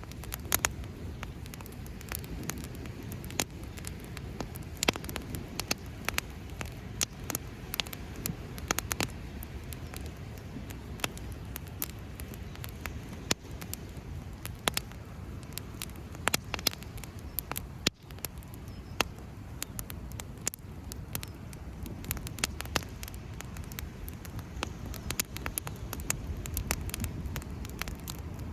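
Wood campfire crackling, with frequent sharp pops and snaps at irregular intervals over a low steady rumble.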